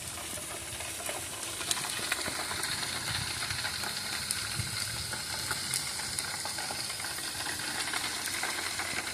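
Meat sizzling on a grill: a steady hiss with scattered pops and crackles of spitting fat.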